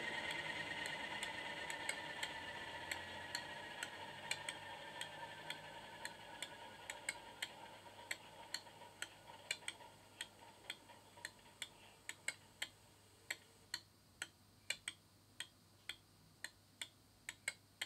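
Class 37 diesel sound from a model locomotive's DCC sound decoder, played through its small speaker. The engine sound and a whine falling in pitch wind down and fade over several seconds, as in a shutdown, and a regular ticking, about two ticks a second, grows clearer as the engine dies away.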